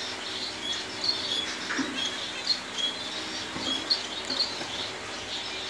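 Small aviary finches chirping: many short, high calls scattered through, several a second, from a mixed flock that includes Gouldian finches and Java sparrows.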